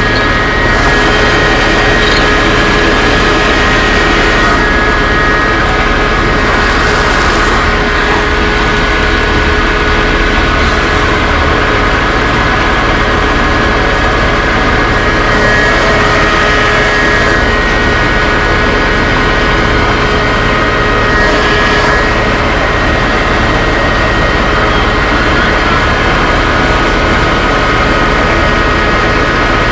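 Fire truck engine running steadily at high revs, driving its water pump while water is being pumped, with a steady whine over a low rumble.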